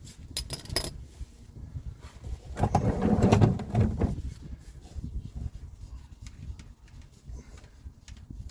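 Metal clinks of a socket wrench working the steel drain plug on the oil pan, a few sharp clinks at first, then a louder noisy stretch of about a second and a half, followed by scattered light ticks.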